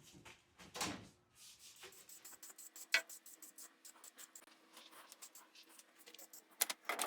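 Light scratching and rubbing, with many rapid small ticks, a brief swish about a second in and one sharp click about three seconds in.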